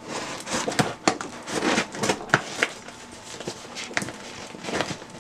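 A sealed cardboard shipping box being opened: crinkling and tearing of its tape and packing, with scattered sharp clicks.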